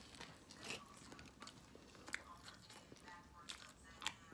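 Faint chewing of a mouthful of steak torta (steak sandwich), with soft wet mouth clicks and a couple of sharper clicks about two seconds in and near the end.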